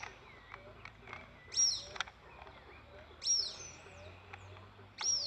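A bird calling over and over: sharp, high chirps that sweep up and then down, three loud ones about every one and a half to two seconds, with fainter chirps between them.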